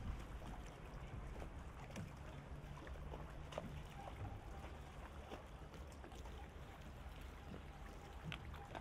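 Harbour ambience: a steady low rumble with scattered small clicks and knocks.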